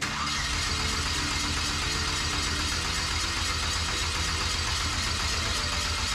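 2.4 L GM Ecotec four-cylinder being cranked over by the starter, turning steadily and evenly but never catching: a no-start even though it has oil pressure and fuel pressure.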